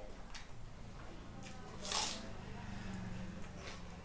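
Hand-eating of curd rice: wet squishing of the rice being mixed by hand and mouth sounds of chewing, with one sharp, louder smack about halfway through.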